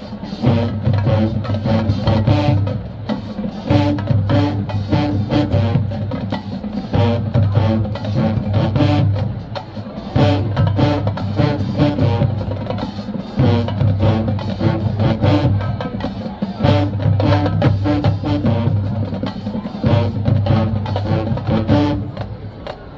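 Marching band drums playing a loud cadence, a steady beat of many hits with deep bass notes repeating in phrases a few seconds long.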